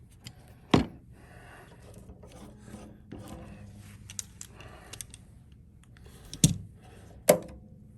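Small hand clamps and a wooden guitar neck being handled on a workbench: rubbing and shuffling, with three sharp knocks, one about a second in and two close together near the end.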